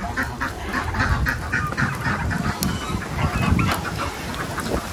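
A flock of farmyard poultry calling, many short overlapping calls, over a low rumble of wind on the microphone.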